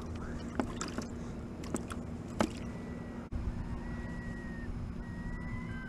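Hands handling a live bunker and fishing gear aboard a plastic sit-on-top kayak: a few light knocks and clicks in the first couple of seconds, over a steady low hum. From about halfway, faint thin drawn-out whistling tones.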